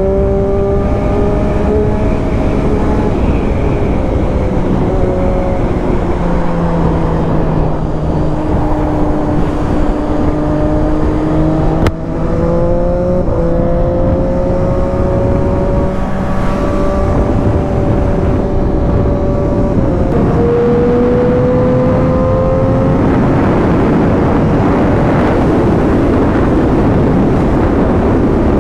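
Triumph Daytona 675 inline-three engine running under way, its pitch drifting slowly up and down with road speed, over steady wind and road noise. In the last few seconds the wind rush grows louder and the engine tone sinks under it.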